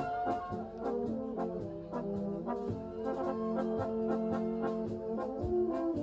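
Bavarian brass band playing: trombones, trumpets and tuba sounding held chords and a tune over a steady beat.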